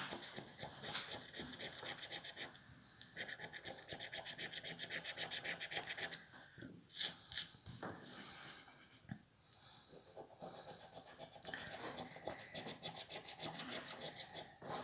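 A coin scratching the coating off a paper scratch card in quick, rapid back-and-forth strokes. The strokes pause around the middle, where there are a couple of sharp clicks, and start again for the last few seconds.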